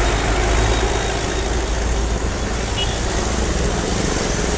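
Street traffic: the engines of passing vehicles such as auto-rickshaws and motorcycles running, a steady rumble.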